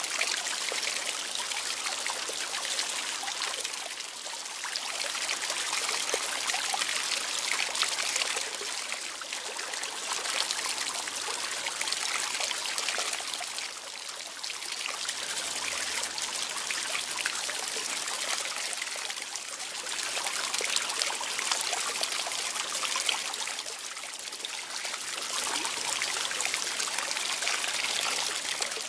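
Water trickling and running steadily, a bright hiss that swells and eases every few seconds.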